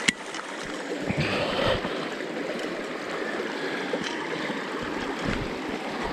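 Shallow stream water running steadily, with splashing about a second in as hands work a steel beaver trap in the water. A single sharp click comes right at the start.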